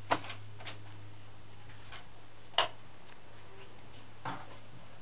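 Five or so short clicks and light knocks, the loudest about halfway through, from a bathroom door being opened by its metal knob and latch. A steady low hum runs underneath.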